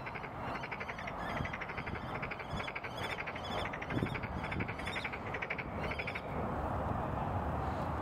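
Common kestrel calling: rapid runs of sharp, high repeated notes that stop about six seconds in, over a low steady rumble.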